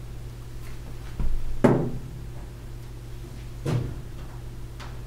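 Thin aluminum canopy track being bent and handled by gloved hands against the aluminum airframe: a loud clunk about a second and a half in and a lighter one near four seconds, over a steady low hum.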